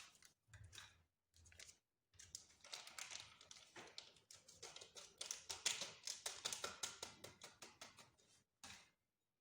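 Faint rustling and a fast run of soft little taps as two paper sachets of baking powder are handled, torn and shaken out into the batter bowl.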